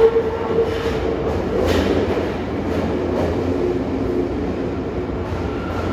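Tokyo Metro 10000 series subway train pulling out of an underground station: a steady rumble of wheels on rails with a few clacks over the rail joints.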